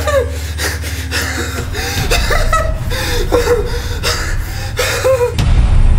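A man gasping and breathing hard in fear, with short rapid breaths and rising-and-falling vocal moans over a low steady hum.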